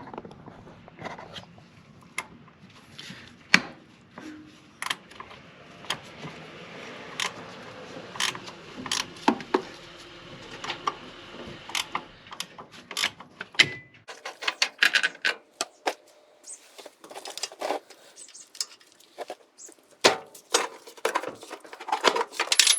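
Irregular metallic clinks, taps and knocks of hand tools and steel suspension parts being handled and set down. A faint steady background hum drops away about two thirds of the way through.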